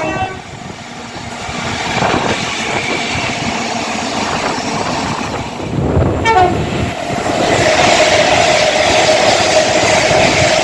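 Passing train sounding its horn: a short blast at the start and another about six seconds in, followed by a long steady tone over the rising rush of the train going by.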